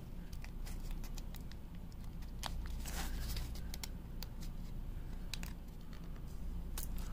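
Fingertips peeling and tearing the paper seal on a cardboard playing-card tuck box and working its flap open: scattered small clicks and scratches, with a longer rustling tear about three seconds in.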